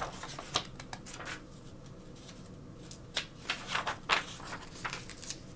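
Pages of a picture book being handled and turned: a scattering of short paper rustles and taps, busiest about three to four seconds in.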